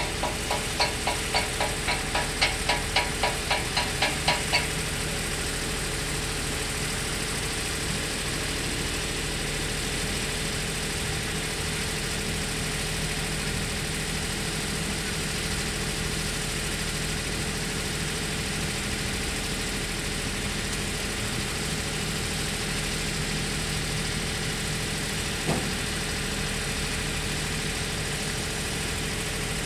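Hydraulic excavator's diesel engine running steadily. For the first four seconds a quick, even series of sharp pulses, about three or four a second, rides over it, and there is a single knock near the end.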